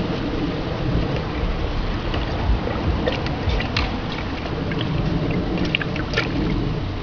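A German Shepherd mouthing a toy ball in a shallow plastic paddling pool: small splashes and sloshes of water, a few sharper ones about midway and near the end, over a steady low rumble.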